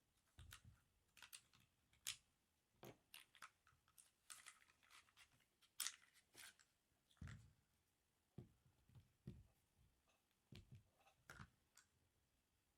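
Faint, irregular clicks and light knocks of small pistol parts being handled while an airsoft 1911 is worked on, some with a dull thud as a part is set down.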